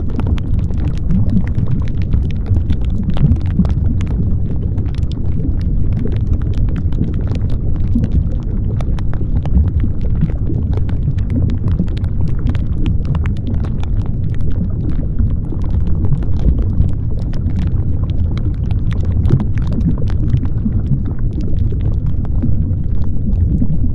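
Steady, loud low rumbling noise with dense fine crackles throughout and no music: the cover sound of a subliminal track.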